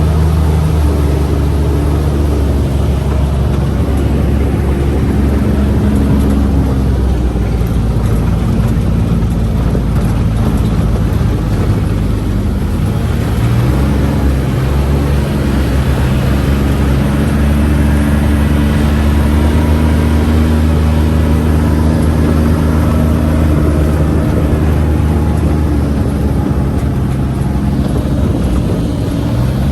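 Utility terrain vehicle (UTV) engine running under way, its pitch shifting as the throttle changes, with rumble from the ride.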